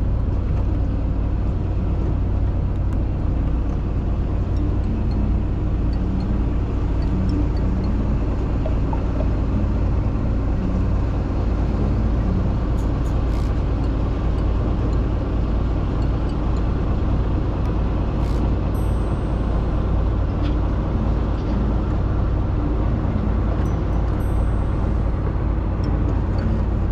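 Fishing boat's engine running steadily, a constant low drone that does not change.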